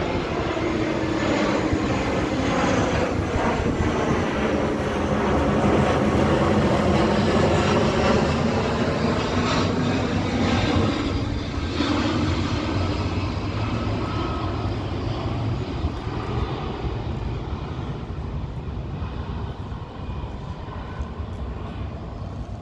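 Airbus A320 jet flying low overhead on approach with its landing gear down: the engine noise grows to its loudest about eight seconds in, drops in pitch as it passes, then fades as it moves away.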